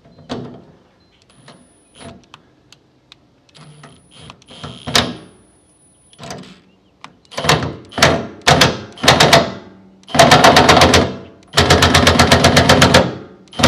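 Cordless impact wrench on its lowest setting, hammering a nut onto a mounting bolt of an auxiliary fuel tank without over-tightening it. It fires in four short bursts, then two longer runs of rapid hammering near the end, after a few light clicks and knocks of tool handling.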